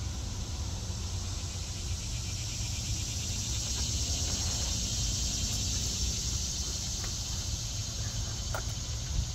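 Steady chorus of insects droning in the summer trees, a high shrill buzz with a fast pulse that swells a little midway, over a low steady rumble.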